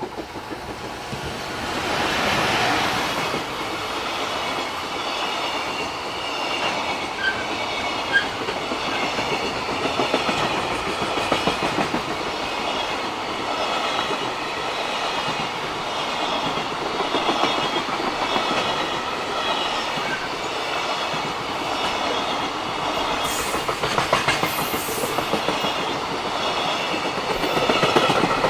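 Freight train passing over a level crossing: the wagons clack rhythmically over the rail joints, building up over the first two seconds and then holding steady. The crossing's warning bell rings throughout.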